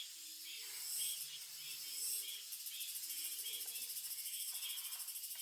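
Wild birds calling in repeated short, high-pitched chirps, joined about two and a half seconds in by a fast, even high trill.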